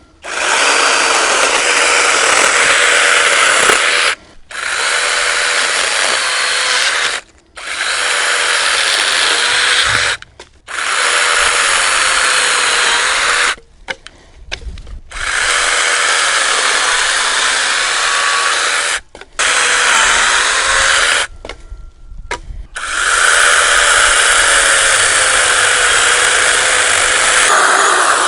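ORBLON 6-inch brushless battery mini chainsaw cutting through a thick branch. It runs in seven bursts with short pauses between them, and its motor pitch wavers as the chain bites into the wood.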